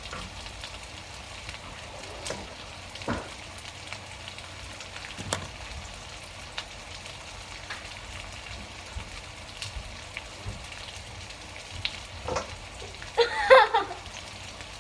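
Breaded chicken frying in a pan: a steady sizzle with scattered sharp pops. A brief, louder burst of sound comes near the end.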